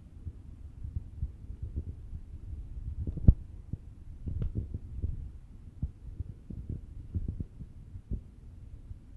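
Dull, irregular low thuds of footsteps and handling bumps on a handheld camera's microphone while walking a trail, with one sharper knock about three seconds in.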